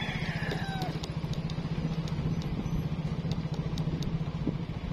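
Motorcycle engine running steadily while riding along, a low, even drone with rapid firing pulses.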